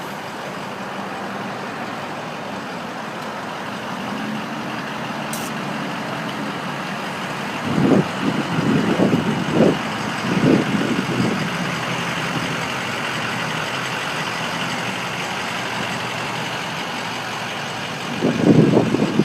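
Street traffic: a steady wash of passing vehicle and engine noise, with a few louder low rumbling surges around the middle and again near the end.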